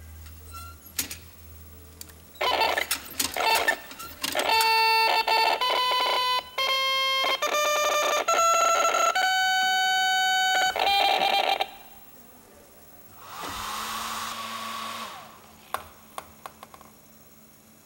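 A hacked inkjet printer's mechanism clattering, then sounding a run of steady buzzing tones that jump from one pitch to another about once or twice a second, like a machine playing a tune. Near the end comes a short noisy whir with a steady tone, then a few sharp clicks.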